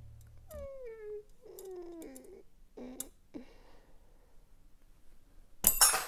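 A cat meowing two or three times, each call falling in pitch, the last one short. A sudden loud noise comes near the end.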